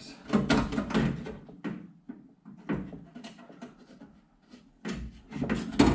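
Window regulator's metal arm and roller clanking and scraping inside the steel door of a 1970 Datsun 521 as it is worked into the glass channel. There is a burst of rattling in the first second or so, a quieter stretch, then more rattling with a sharp knock near the end.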